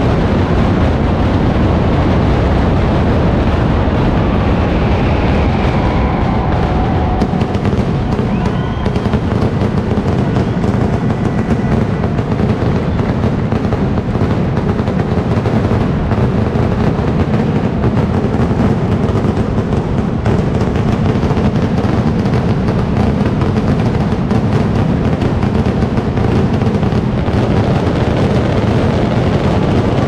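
Mascletà firecracker barrage: a dense, unbroken string of firecrackers and ground bombs going off in rapid, rhythmic succession, loud throughout.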